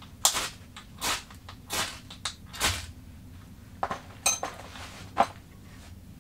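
Ferro rod struck with a steel striker to throw sparks onto tinder. There are four long rasping scrapes about once a second, then a few shorter scrapes and clicks about four to five seconds in.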